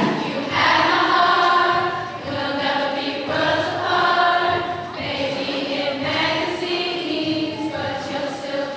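Eighth-grade choir singing together, holding sustained notes.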